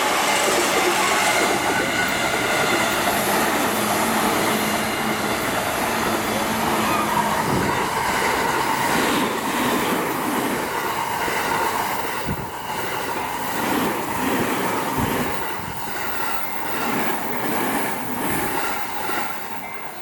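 JR electric commuter trains running past at close range, including a Yokosuka Line E217 train. Steady rumble and rail noise with wheel clacks over the rail joints; it eases off a little over halfway through.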